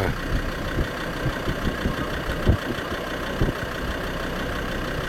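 Car engine idling steadily, with a few short low thumps over it.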